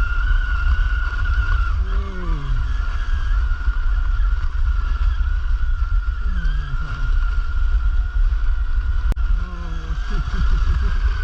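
Kraken Vekta.5 1/5-scale electric RC car with a brushless motor running, a steady high whine over heavy low rumble, with a few short falling tones at about two, six and ten seconds.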